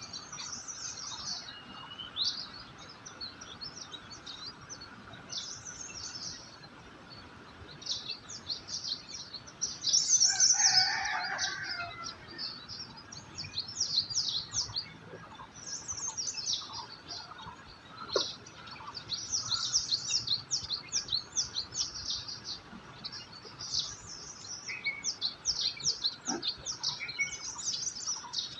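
Several songbirds chirping and trilling, their quick high chirps and rapid trilled runs overlapping. One louder, lower call lasts about two seconds, about ten seconds in.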